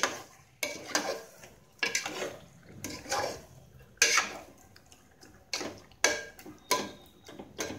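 A metal ladle stirring raw chicken pieces in an aluminium pressure cooker, knocking and scraping against the pot's sides and bottom in irregular clinks, about one to two a second.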